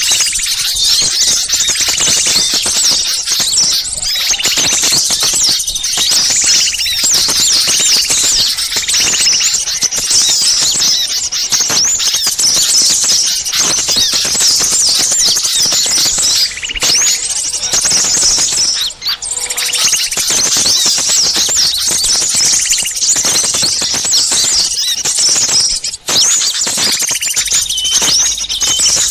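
Bird-lure recording of a noisy crowd of small songbirds: dense, high, rapid chirps and squeaky calls overlapping without pause, briefly dropping out twice in the second half.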